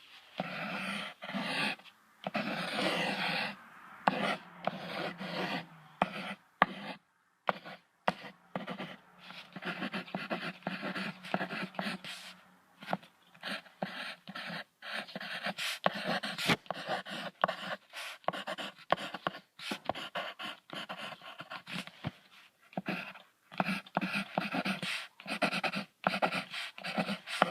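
Tiger sounds: a string of short breaths and calls, chopped into many pieces by abrupt breaks.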